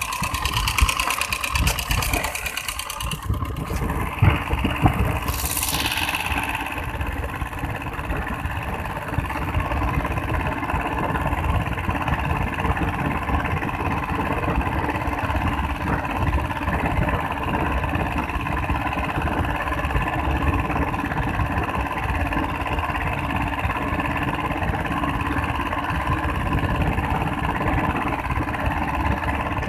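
Small inboard engine of a traditional outrigger fishing boat running steadily while the boat is underway. There is a brief hiss about five seconds in.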